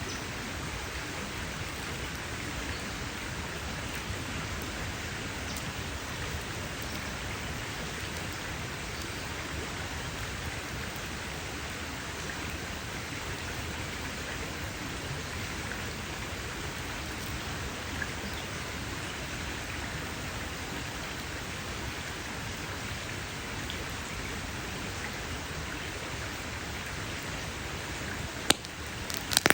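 A steady, even hiss like rain with no crackles. Near the end it dips, and a few sharp campfire crackles begin.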